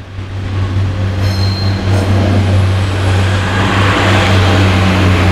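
Class 142 Pacer diesel railbus passing close by over a level crossing. Its diesel engine gives a steady low drone, under rumbling wheel and running noise that grows louder over the first second or so and then holds.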